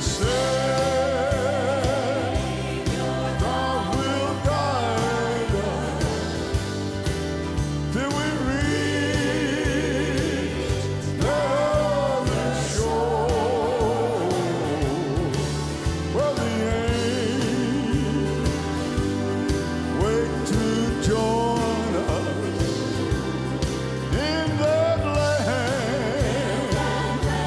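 Live gospel music: piano and band accompanying several singers singing together in harmony, with strong vibrato.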